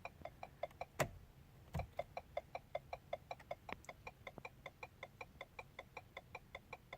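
Car turn-signal indicator clicking quickly and evenly, about five clicks a second, with one sharp knock about a second in.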